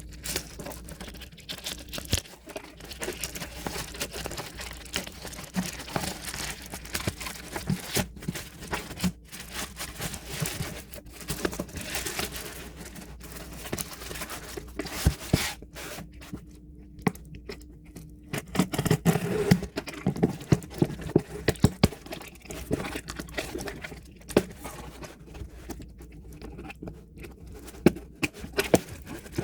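Packaging being torn open and crinkled by hand: continuous rustling, crackling and scraping, with louder bursts a little past the middle and again near the end.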